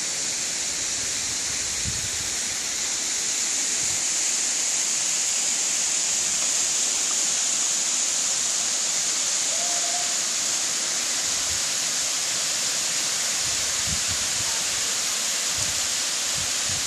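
Steady rush of a waterfall, a thin cascade spilling down a rock face into a pool, a little louder a few seconds in.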